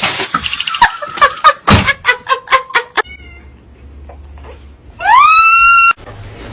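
A rapid run of loud clicks mixed with short pitched squeaks, then a cat's loud meow: one long call about five seconds in that rises and then holds before cutting off.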